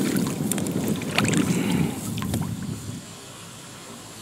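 Kayak paddling: the double-bladed paddle dipping and dripping in the water, with a few sharp splashes over a low wind rumble on the microphone. About three seconds in it cuts to a quiet steady hiss.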